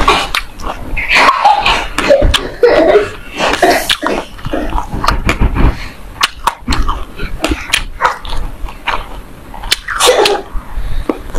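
Clear plastic wrap crinkling and crackling as a sesame-seed-coated ball is handled close to a clip-on microphone, with many sharp crackles throughout.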